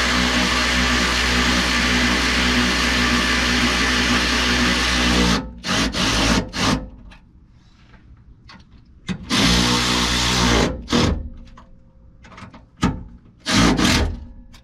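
Cordless drill-driver running steadily for about five seconds as it drives in a tailgate check bracket bolt, then stopping, followed by about four short bursts as the bolt is snugged down.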